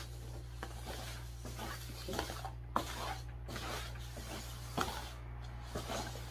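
Paper cups being slid across a tabletop and set down while they are shuffled, giving a few faint taps and scrapes spread over several seconds, over a steady low hum.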